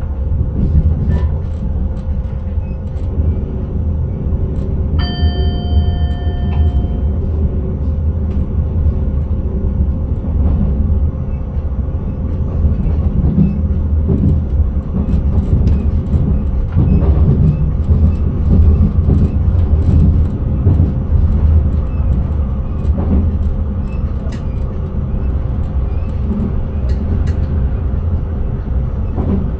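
Electric intercity train running along the line, heard from the driver's cab: a steady low rumble with light clicks from the track. About five seconds in, a short bell-like tone sounds for a second or two.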